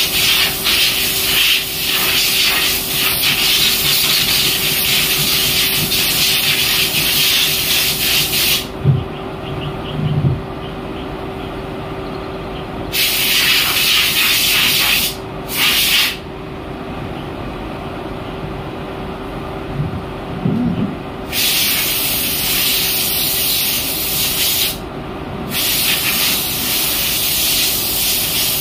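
Spray jets hissing inside a stainless-steel bin washing machine, cutting out and starting again several times, over the machine's steady hum.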